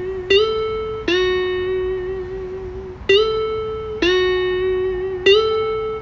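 Background music: a slow melody of single plucked string notes, each sliding into pitch and ringing on, rocking back and forth between two nearby notes roughly once a second.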